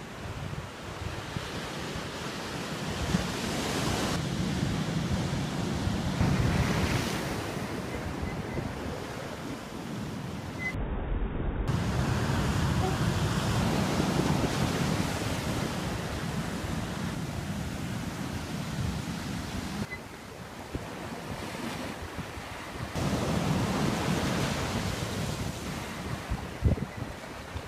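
Ocean surf breaking on rocks and the shore, a steady wash that swells and fades, with wind buffeting the microphone; the sound changes abruptly several times. A single low thump near the end.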